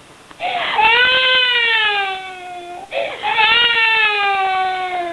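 A 9-month-old baby crying in two long wails, each sliding down in pitch, with a sharp breath in before each wail: the baby is upset after being startled by a sneeze.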